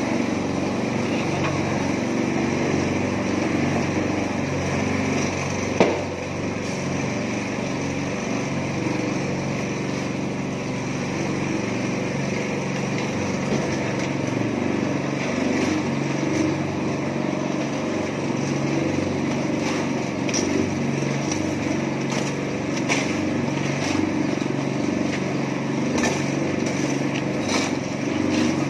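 Small petrol engine of a mini concrete mixer running steadily. There is a sharp knock about six seconds in and a few short clicks near the end.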